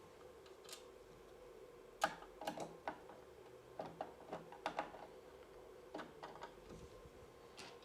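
Phillips screwdriver turning small screws into a hard drive through a metal recorder case: an irregular scatter of small clicks and ticks from about two seconds in.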